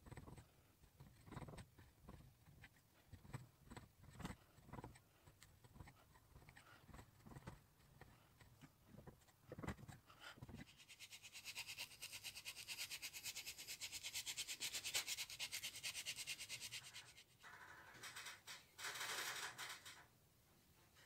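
Faint taps and scrapes of a chisel blade working the wooden handle against the steel tine. About halfway through this gives way to a paintbrush scrubbing finish onto the wood: a dense, fast bristle scratching that pauses briefly and starts again near the end.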